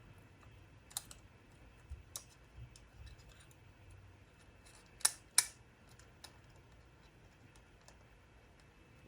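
Small, scattered clicks and taps of handling tiny parts at a repair bench, with two sharper clicks close together about five seconds in.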